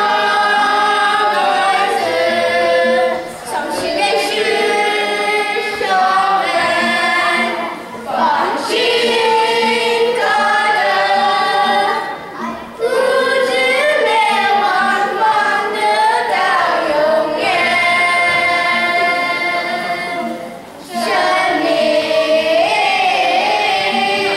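A youth choir of children and teenagers singing together, in several phrases with brief pauses between them.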